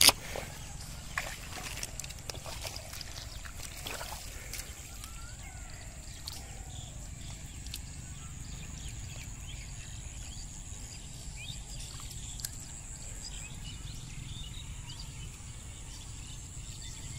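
Hands groping and sloshing in shallow muddy water among water hyacinth, with small splashes and drips, mostly in the first few seconds. A steady high-pitched insect buzz runs underneath.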